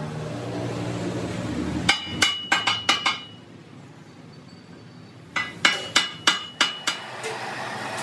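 Sledgehammer striking a steel truck wheel rim, in two quick runs of about six ringing metal blows each, a couple of seconds apart. At the start and again near the end, the motor-driven machine that spins the rim runs with a steady hum.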